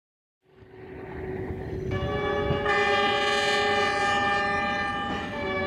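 Diesel passenger train approaching with a building rumble, its horn sounding a long sustained blast of several notes at once from about two seconds in, dipping briefly near the end before holding on.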